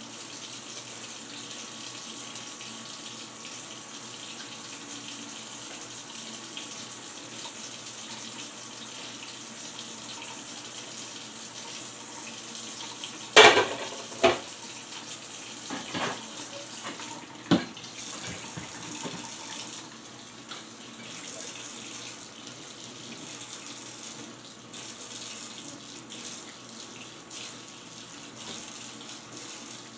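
Kitchen tap running steadily into a stainless steel sink while dishes are rinsed. About halfway through, four sharp clanks of dishware being handled come within a few seconds, the first the loudest.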